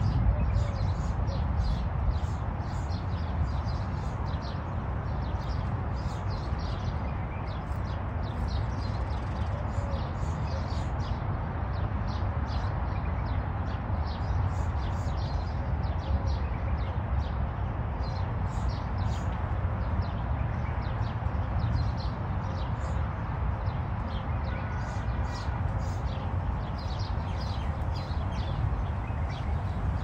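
Small birds chirping busily in many short, high, repeated notes, over a steady low rumble.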